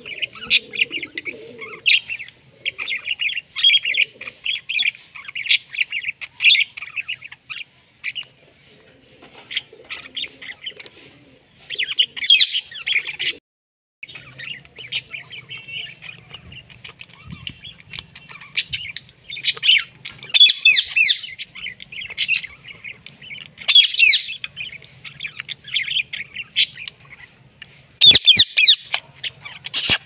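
Indian ringneck parakeets chattering and calling: a near-continuous stream of rapid chirps, with louder, harsher squawks about twelve, twenty, twenty-four and twenty-eight seconds in.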